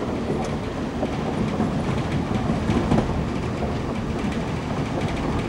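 Passenger train running along the rails, heard from on board: a steady rumble with irregular clicks of the wheels passing over rail joints.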